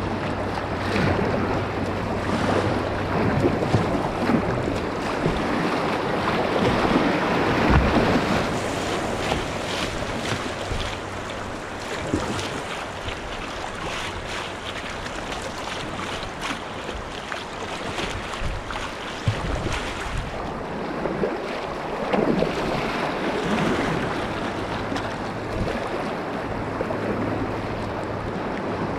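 Fast river current rushing and splashing around a Dagger Mamba whitewater kayak's bow as it is paddled downstream, with repeated splashes of paddle blades dipping into the water. Wind buffets the microphone.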